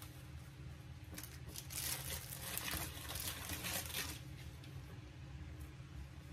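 Disposable plastic gloves crinkling and rustling as hands roll and handle stuffed grape leaves, loudest between about two and four seconds in, over a low steady hum.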